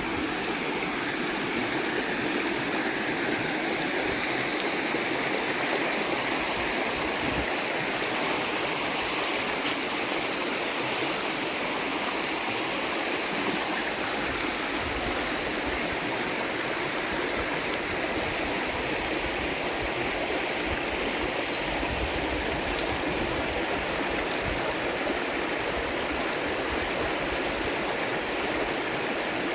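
Creek water rushing steadily, an even, unbroken hiss of flowing water.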